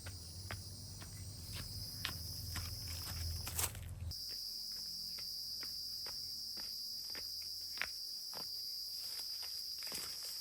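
Night insects chirring steadily in a high, even drone, with scattered light clicks and taps throughout and a brief louder rustle about three and a half seconds in.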